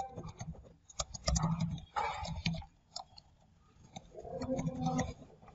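Computer keyboard clicking in short, irregular runs of keystrokes as a line of code is typed. A few duller, low sounds come between the clicks.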